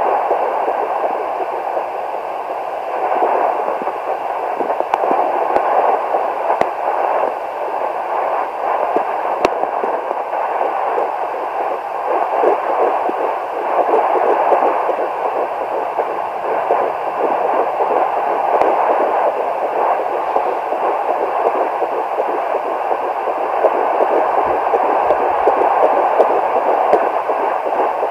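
Hi Bebe home fetal doppler's speaker playing the whooshing pulse of a fetal heartbeat at 11 weeks 4 days of pregnancy, over a steady hiss.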